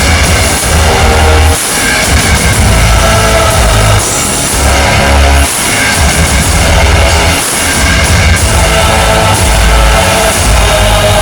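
Loud rock music with heavy drums and bass.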